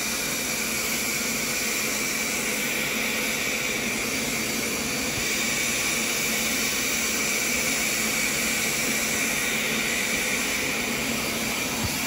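Hoover PowerScrub XL carpet cleaner running, its suction motor pulling water up through the hose and upholstery hand tool on a wet couch cushion: a steady, even hiss.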